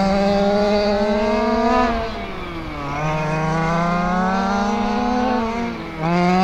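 Quarter-scale RC sprint cars' engines racing on an oval, the pitch falling off for a turn about two seconds in and again near the end, then climbing back up along the straights.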